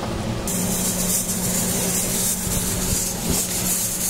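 Steam hissing from the pressure regulator of a 1.5-litre Hawkins Classic aluminium pressure cooker as it comes up to pressure, starting suddenly about half a second in, over a steady low hum.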